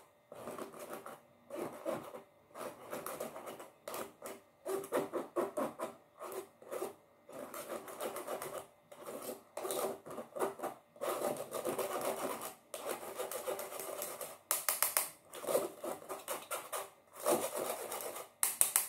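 Metal spoon scraping and stirring flour through a wire mesh sieve over a steel bowl: a steady run of quick rubbing, scratching strokes, with louder, sharper runs twice near the end.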